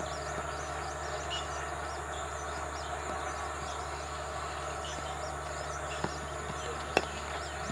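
Steady outdoor background noise with a constant low hum and faint, repeated bird chirps. A faint knock comes about six seconds in, and a sharp, louder knock follows about a second later.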